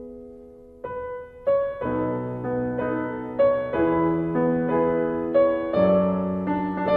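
Background piano music: a slow run of held notes that grows louder as it goes.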